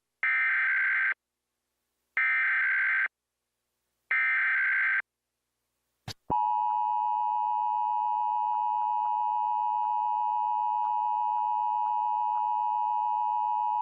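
Emergency Alert System test signal: three one-second bursts of the buzzy SAME digital header, a second apart, then a click and the steady two-tone EAS attention signal (853 and 960 Hz) held for about eight seconds.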